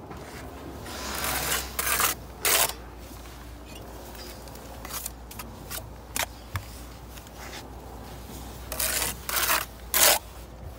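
Brick trowel scraping and slicing wet mortar in several short strokes, with a few light clicks, as bricks are buttered and the excess mortar is cut off the joints.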